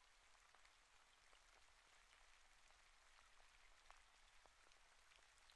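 Near silence: a faint hiss with scattered tiny ticks.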